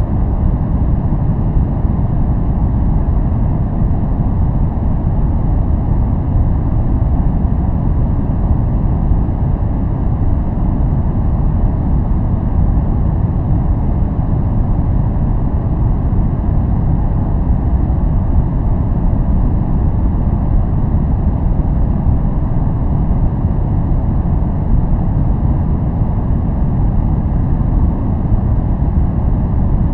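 Steady, unchanging white-noise track for focusing, deep and rumbling in tone with little high hiss.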